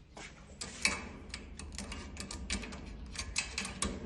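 Irregular small clicks and taps of door lock hardware being handled and worked on, several a second with a few louder ones.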